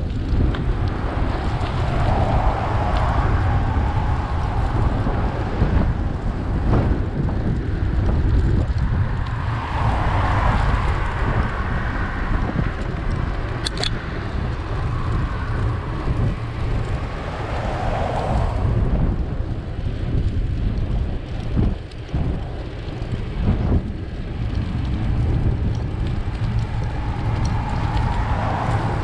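Wind buffeting the microphone of a camera on a moving bicycle, a steady low rumble, with several passing cars that swell and fade, and one short sharp click about halfway through.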